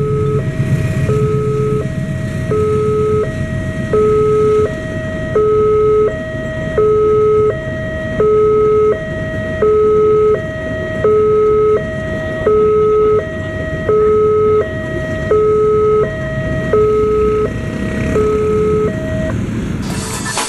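Railway level-crossing warning alarm sounding a steady two-tone signal, switching between a low and a higher tone about every three quarters of a second, over the rumble of a passenger train passing at speed. The alarm stops near the end.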